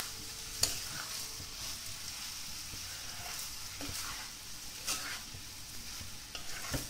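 A metal spoon stirring diced bottle gourd and grated coconut in a nonstick frying pan over a low gas flame, with a soft steady sizzle and a few sharp clicks of the spoon against the pan.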